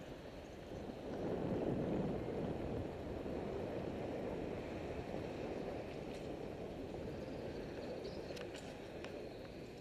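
Wind buffeting an action camera's microphone during a bicycle ride, a steady low rumble that swells a second or two in. A few faint clicks near the end.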